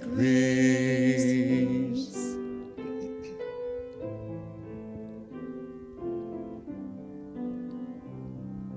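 A man and a woman singing a hymn together, holding the final word 'grace' over piano accompaniment; about two seconds in the voices stop and the piano plays a short interlude alone.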